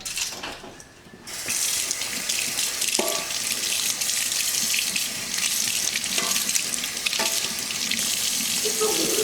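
Kitchen sink tap turned on about a second in, then running steadily into the sink, with a few light knocks.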